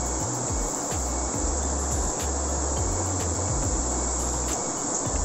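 Steady drone of insects over the rush of a fast-flowing river.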